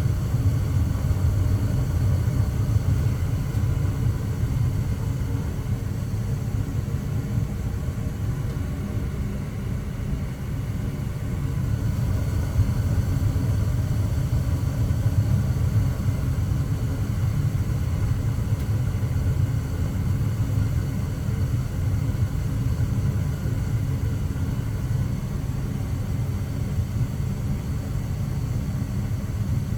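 Gas furnace running with a steady low rumble, staying on without shutting off now that its flame sensor has been cleaned and its filter changed.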